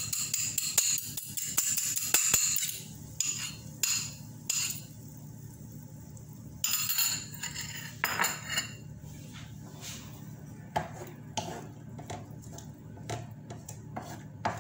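Kitchen utensils knocking and clinking against a pan and dishes. Onions sizzle in the pan over the first three seconds, then come scattered sharp knocks and clicks.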